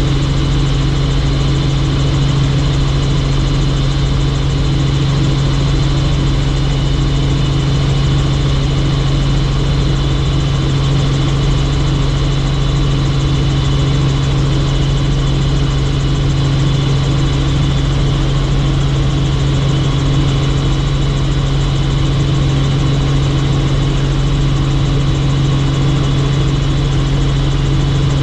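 Helicopter in flight: the steady, unchanging drone of its rotor and engine, with a strong low hum.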